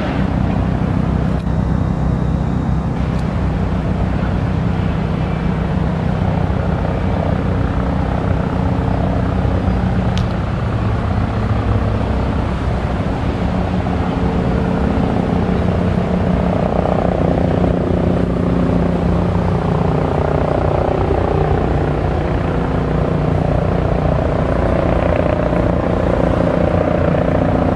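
Bell 429 helicopter's twin turboshaft engines and rotor running with a steady throb, growing slightly louder near the end.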